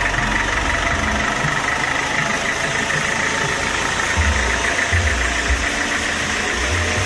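Engine running steadily.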